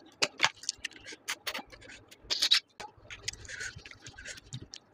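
Close-up mouth sounds of eating snails with rice: many wet lip smacks and clicks while chewing, and a short slurp about two and a half seconds in as snail meat is sucked from its shell.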